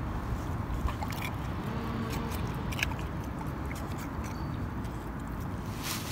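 American Bully dog chewing and licking its lips, with wet mouth clicks scattered through and a louder click near the end, over a steady low rumble.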